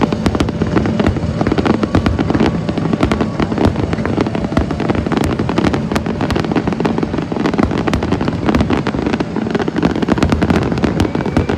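Dense fireworks barrage: rapid crackling and popping bursts overlapping one another over a continuous deep rumble of shell explosions.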